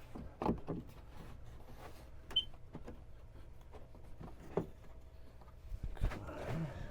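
Scattered knocks and clunks of wooden boards and tools being handled during cabinet assembly, with a brief whir of a small power tool, such as a cordless drill driving a screw, near the end.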